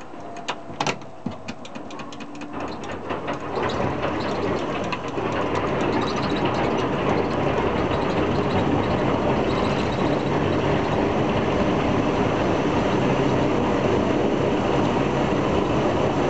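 Il-14's left Shvetsov ASh-82T radial engine starting after the starter is engaged: the starter's whine falls away, the engine catches with irregular pops over the first few seconds, then comes up to a loud, steady run, heard from inside the cockpit.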